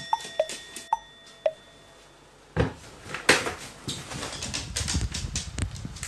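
A few short plinking sound-effect notes, then after a brief lull a run of irregular clicks, knocks and low thuds. These are a plastic bucket being set down on a wooden floor and handled, and a crow stepping and landing on its rim.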